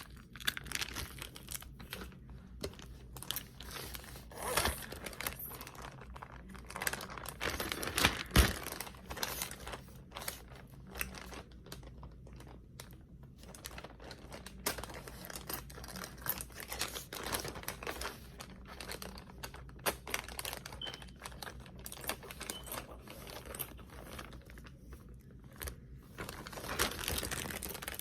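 Irregular crinkling and crackling handling noise with many small clicks, and a sharper knock about eight seconds in.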